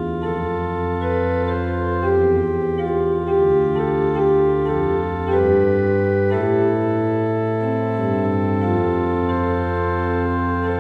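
Organ music: slow, sustained chords that change every second or two over a held bass note.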